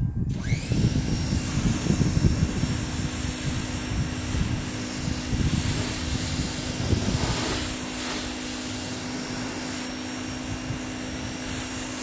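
Pressure washer running as the truck's hood is rinsed: the water spray hisses over a steady pump-motor hum. It starts suddenly at the outset and shuts off near the end, with wind buffeting the microphone underneath.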